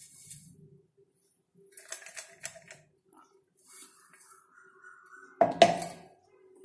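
Steel mixer-grinder jar tipped and tapped against a steel bowl to empty out freshly ground coffee powder: a few faint clicks about two seconds in, then two sharp metal knocks about a second before the end.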